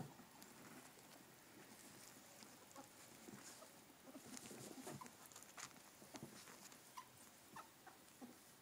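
Faint scuffling and pattering of two pet ferrets wrestling on a fabric couch cushion, with scattered soft clicks and rustles.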